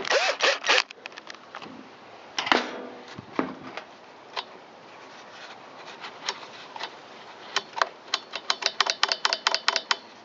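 Plastic parts of a Stihl BG55 blower knocking and scraping as the handle is fitted and screwed on. In the last couple of seconds there is a fast run of clicks, about five a second.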